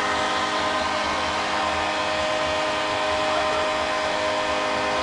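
Hockey arena crowd cheering a hat-trick goal, with a steady sustained multi-tone sound held over the cheering throughout.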